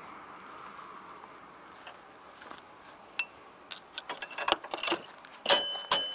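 Steady high chirring of crickets, with a series of sharp metallic clinks of hand tools starting about three seconds in, the loudest near the end, some ringing briefly.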